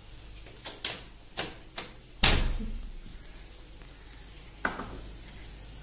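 A kitchen door being handled and swung: a few light clicks and knocks, then one heavier bang a little over two seconds in, and one more click near the end.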